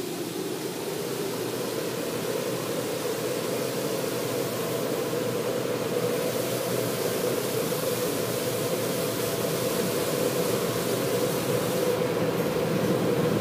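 Automatic car wash heard from inside the car: water spraying over the body and the steady rush of the air-drying blowers, slowly growing louder as the car moves toward the blowers. The hiss of the spray drops away near the end as the car reaches the dryers.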